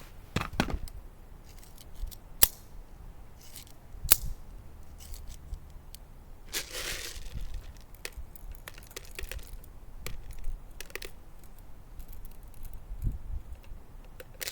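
Glock 19 blowback airsoft pistol firing single shots: sharp snaps spaced unevenly a second or a few apart, the loudest about two and a half and four seconds in.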